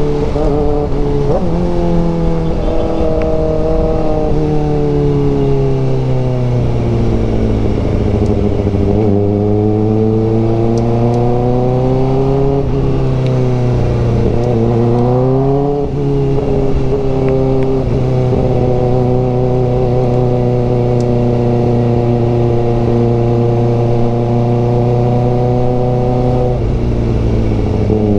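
Kawasaki ZX-4RR's inline-four engine under way: the revs fall at first, then rise, drop briefly and climb again, hold steady for about ten seconds, and fall near the end.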